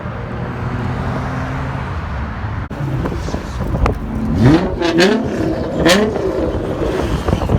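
Car engine idling steadily, then, after an abrupt cut about two and a half seconds in, revved in several quick blips that rise and fall in pitch, with sharp cracks among them.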